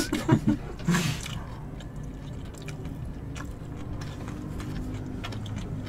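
Close-miked chewing of a bite of bossam (boiled pork), with soft wet mouth sounds and small clicks. A short laugh is heard within about the first second.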